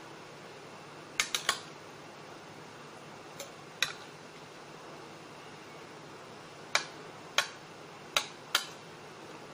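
A metal spoon clinking against dishes as jelly cubes are scooped off a plate and dropped into glass bowls. There are short sharp clicks: a quick run of three about a second in, one near the middle, and four more spread over the last three seconds, over a steady background hiss.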